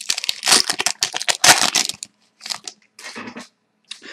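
Trading card pack wrapper being torn open and crinkled by hand: a dense run of loud crackling rips in the first two seconds, then softer, scattered crinkles.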